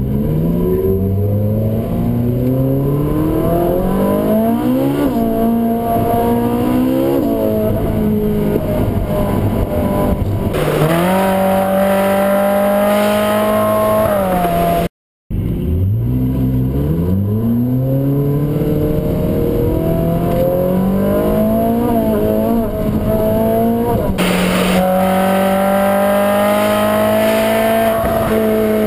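Ferrari 458 Spider's naturally aspirated V8 accelerating hard, its pitch climbing through each gear and dropping at every upshift. The sound cuts out for a moment about halfway, then the engine pulls up through the gears again and holds a high, steady note near the end.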